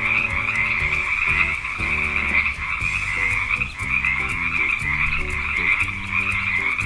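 Frogs croaking in a continuous, dense chorus that swells and dips slightly.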